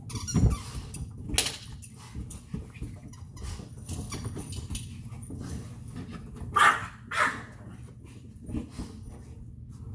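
Dog barking a few short times, the loudest two barks about half a second apart about two-thirds of the way through.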